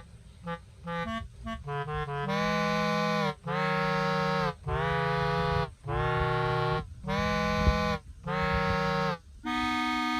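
Background music: a run of quick short notes, then a series of long held chords about a second each with brief breaks between them, the last held longer.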